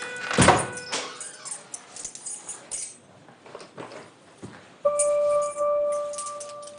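A dull thud about half a second in, a few light clicks, then from about five seconds a telephone ringing with a steady electronic tone, briefly broken and resuming.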